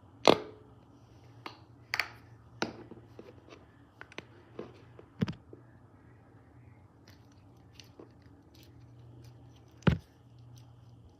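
Play dough slime being squeezed and poked by hand: scattered sticky clicks and pops, a handful of sharper ones among small crackles, over a faint steady low hum.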